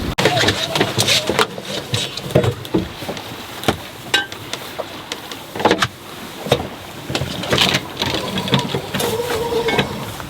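Irregular clicks and knocks of deck gear on a sailboat as the mainsail is raised.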